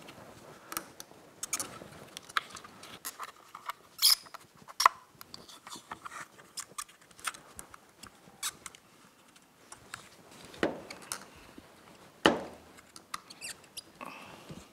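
Plastic clicks, snaps and scrapes as the plastic housing of a Suzuki GSX-R1000 fuel pump assembly is handled and pressed together over a new pickup filter. Irregular small clicks throughout, with a few sharper snaps about four and five seconds in and again around ten and twelve seconds.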